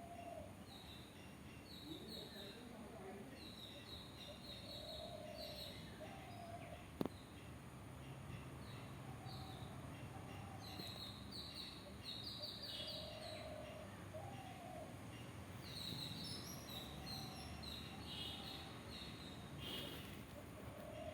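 Wild birds calling: clusters of short high chirps over and over, with a lower, drawn-out call of about a second repeating every two to three seconds. A single sharp click about seven seconds in.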